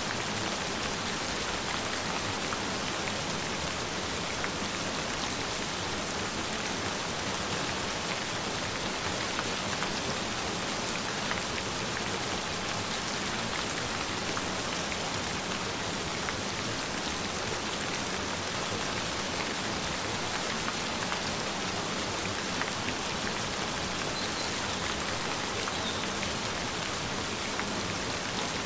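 Steady gentle rain: an even hiss of rainfall with faint scattered drop ticks.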